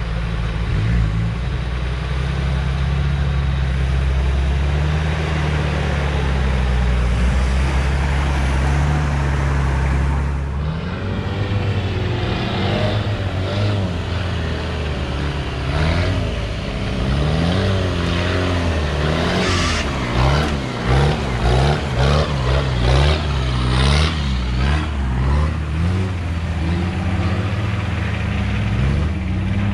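Off-road 4x4 engine running as the vehicle crawls through deep mud and ruts; from about ten seconds in the revs rise and fall over and over as the driver works the throttle, the loudness pulsing with each blip in the second half.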